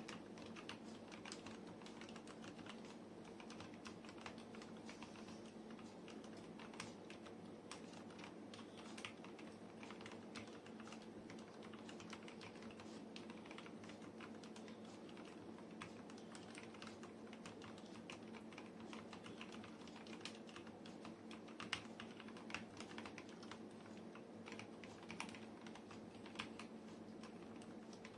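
Continuous typing on a Tecware Phantom TKL mechanical keyboard with Outemu Silver linear switches lubed with Krytox 205g0: a fast, irregular run of soft keystroke clacks, with a few louder strikes near the end.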